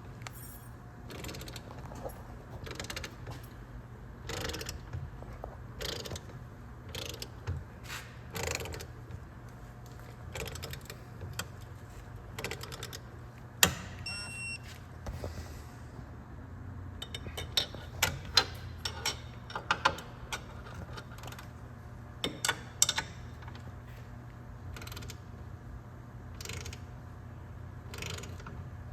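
Hand ratchet and wrench clicking and metal clinking as the strut-to-knuckle nuts are tightened and torqued. There is a sharp metallic knock about 14 seconds in with a brief ringing tone after it, and a run of sharper clicks a few seconds later.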